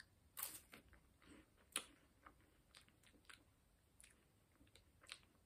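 Faint crunching and chewing of a crisp cheese wafer stick being bitten and eaten: a few sharp crunches in the first two seconds, then softer scattered crunches.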